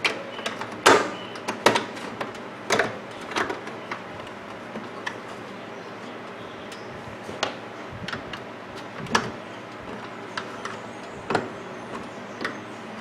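Irregular clicks and knocks of hands working at a microwave oven door and its latch hook, about a dozen sharp taps spaced unevenly, the loudest in the first two seconds.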